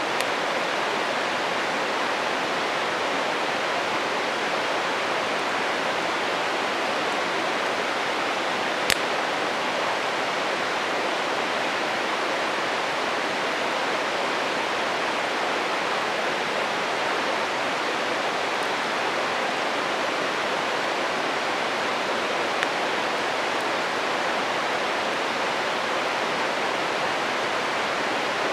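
A stream flowing with a steady rushing sound. A single sharp pop from the wood fire comes about nine seconds in, and a fainter one later.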